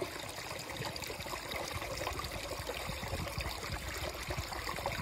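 Small brook trickling and splashing steadily as it spills over a low drop.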